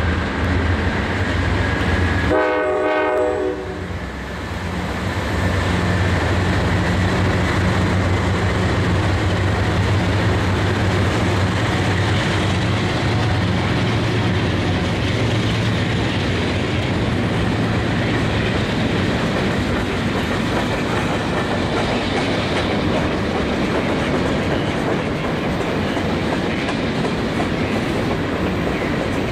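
Diesel freight locomotives passing close, their engines running with a steady low drone that fades after about eighteen seconds, then a long string of freight cars rolling by with continuous clickety-clack of wheels over rail joints. A short horn blast sounds about two seconds in.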